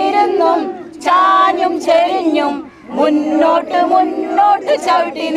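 A group of women singing together in unison, holding long notes with brief breaks between lines.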